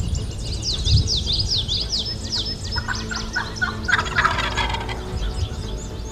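Wild turkey gobbler gobbling, a rapid rattling call about three seconds in that lasts under two seconds. Before it, a songbird gives a quick run of high descending chirps.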